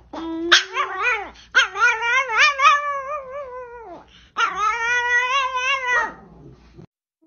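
Small Chihuahua howling: three long, wavering howls that slide up and down in pitch, the middle one the longest, the last fading out near the end.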